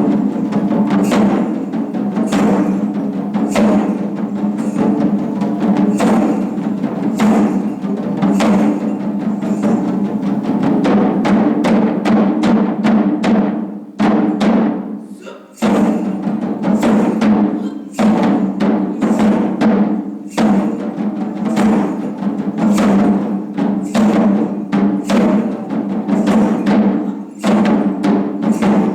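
Japanese taiko drums playing: repeated heavy drum strikes over a sustained low ring. The strokes quicken into a fast run about halfway through, break off briefly, then the beat picks up again.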